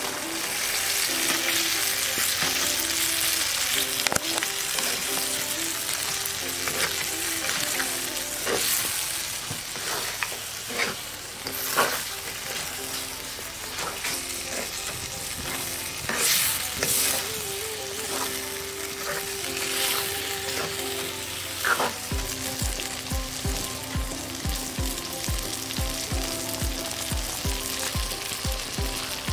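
Fried tuna pieces tipped into hot spiced oil in an iron kadai, sizzling loudly at first, then frying steadily while a wooden spatula stirs them, with occasional scrapes against the pan.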